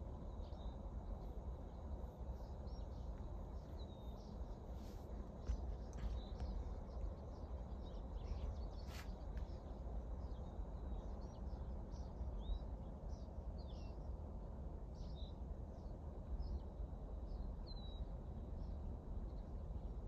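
Small birds chirping now and then, short high calls scattered through, over a steady low rumble of outdoor background noise.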